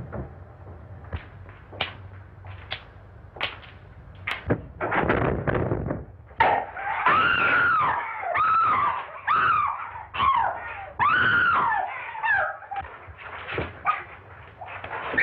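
Two women fighting: a string of thumps and scuffling, then from about six seconds in, repeated shrill screams that rise and fall in pitch.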